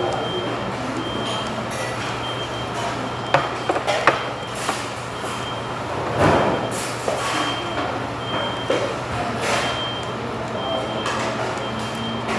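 Restaurant ambience: a steady low hum under a short, high beep that repeats roughly once a second, with a few sharp clicks of tableware on the table.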